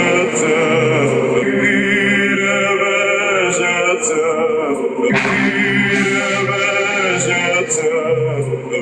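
A loud song with a singing voice holding long, wavering notes over a full backing track.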